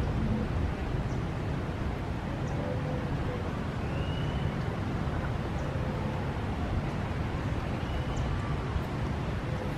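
Steady low outdoor rumble of wind and distant ambience, with two short high chirps about four seconds apart.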